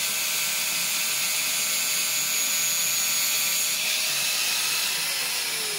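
Electric angle grinder running, its disc grinding down a weld bead on a titanium bicycle frame with a steady whine. Near the end the whine falls in pitch as the disc slows.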